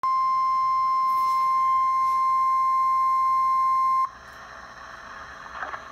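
NOAA Weather Radio's 1050 Hz warning alarm tone, the signal that an emergency alert message is about to be broadcast: one steady, loud tone that cuts off abruptly about four seconds in. A faint radio hiss follows.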